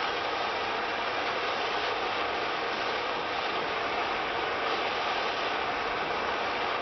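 Small handheld propane torch burning with a steady, even hiss as it heats lead-free body solder on the steel panel.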